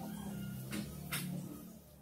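Two short scrapes of a knurled brass fitting against the teeth of a steel file, over a low steady hum that fades near the end.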